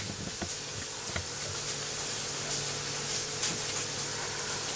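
Hands rubbing lard into flour in a bowl to make pastry: a soft, fine crumbly rustling with a few light taps, over a faint steady hum.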